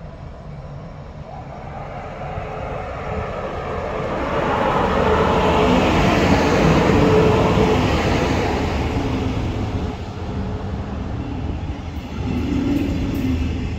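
A train passing by: its rumble and rail noise build up, peak about halfway through with a steady whine, and then die away.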